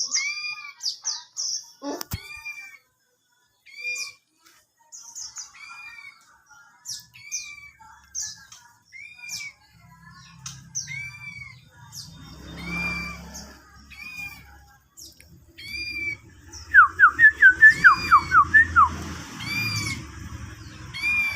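Songbirds calling: a short arched chirp repeated about once a second, with other scattered chirps. About 17 seconds in comes a loud quick run of falling whistled notes.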